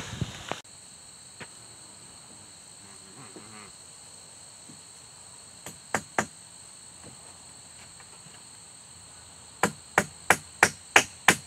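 Hammer blows on a birch-log wall, a few about six seconds in, then a quick regular run of about three a second near the end. Insects chirr steadily behind.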